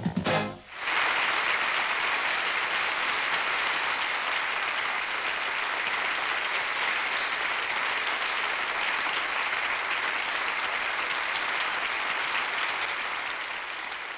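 The song's last note stops within the first second, then an audience applauds steadily, tapering off slightly near the end.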